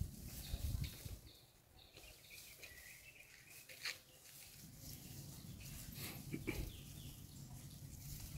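Faint outdoor background with scattered rustles and clicks, a faint wavering high call about two seconds in, and a sharp click near four seconds.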